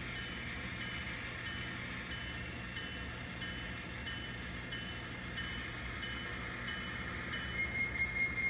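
N scale model diesel locomotive with a sound decoder, playing a running engine sound with a regular ding about twice a second. Near the end a steadier tone joins in.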